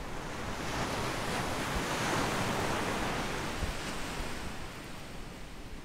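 Ocean surf: a wave breaks and washes up the beach, swelling about half a second in, then fading away near the end.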